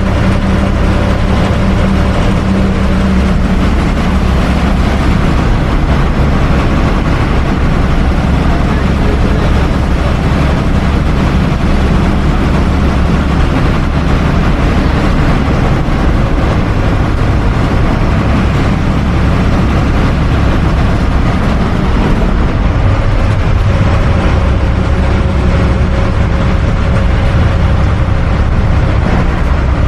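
Interior of a moving bus: a steady low engine drone with road and tyre noise, the engine note shifting a little about two-thirds of the way through.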